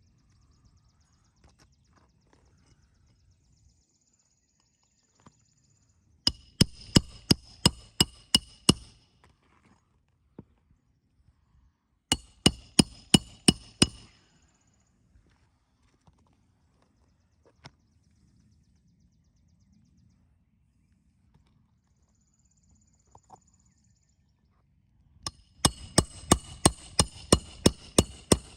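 Roofing hatchet driving nails into a replacement shingle: three quick runs of hammer blows, about three a second, each strike ringing briefly.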